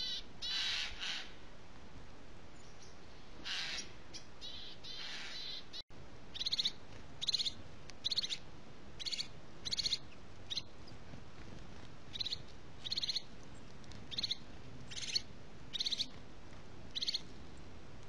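Bird calls: a few harsh, scratchy calls in the first few seconds, then, after a brief break, a long series of short calls repeated about once a second.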